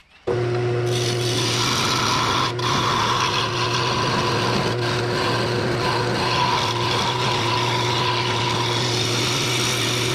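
Wood lathe running while a scraper cuts along a spinning wooden 4x4 blank: a steady, loud scraping rasp over the lathe motor's hum. It starts abruptly and cuts off suddenly near the end.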